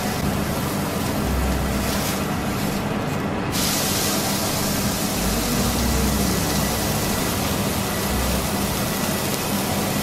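Beef patty sizzling on a hot flat-top griddle as a steady hiss, louder and brighter from about three and a half seconds in, over a low steady hum.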